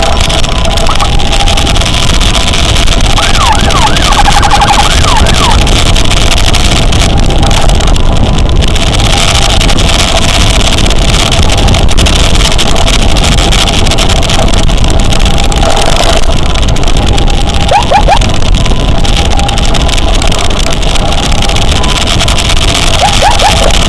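Loud, steady wind and engine noise from a motorcycle riding at speed, with an emergency siren heard faintly through it, sweeping up and down in short runs a few times: about three seconds in, again past the middle, and near the end.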